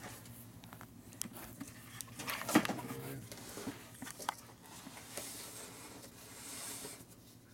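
Parts being rummaged on steel shelving: scattered knocks and clicks of boxes and parts being moved, the loudest knock about two and a half seconds in, then soft cardboard rustling and sliding as a small parts box is pulled off a shelf.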